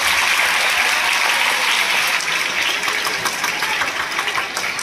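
A crowd applauding: dense clapping that eases off slightly toward the end.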